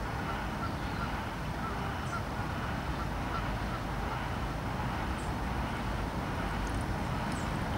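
Steady low rumble of wind, with a run of faint, short bird calls repeating about twice a second in the first half.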